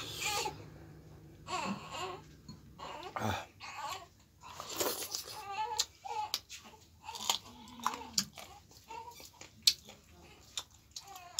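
Close-up eating sounds: wet chewing and lip-smacking of millet dhido and chicken gizzard curry, many short sharp smacks and clicks, with a few brief wordless vocal sounds between them.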